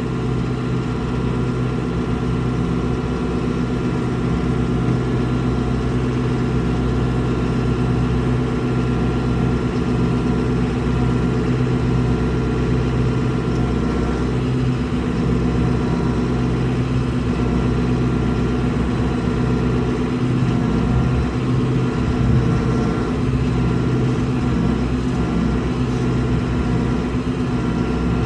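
Engine of a hay-feeding vehicle running steadily at a constant, low speed.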